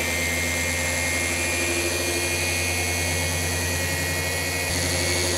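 Cordless paint polisher running steadily, its foam pad working on car door paint: a constant motor hum with a thin high whine.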